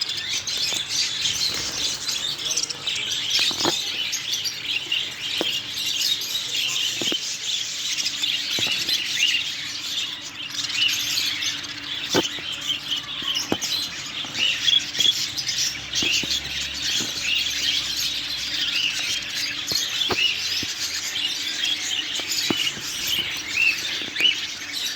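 A crowd of small caged pet birds chirping and twittering all at once, a dense steady chatter of short high calls, with a few sharp clicks now and then.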